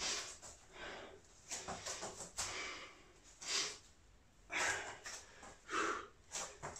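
A man breathing hard from exertion during press-ups, with short, forceful breaths about once a second.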